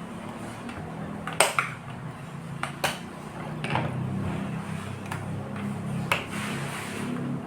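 A handful of sharp, separate clicks and knocks of small hard objects being handled, over a low steady hum.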